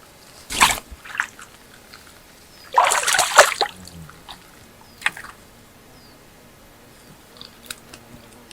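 Water splashing in a few separate bursts: a short splash, then a longer, louder stretch of splashing about three seconds in, and a brief splash about five seconds in, followed by a few faint ticks.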